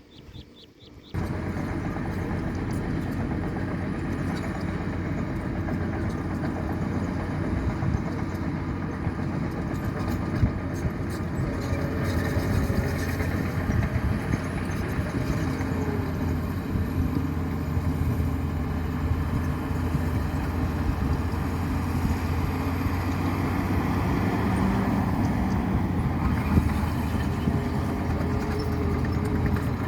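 Heavy truck engine running steadily, cutting in abruptly about a second in, with a faint high whine above it.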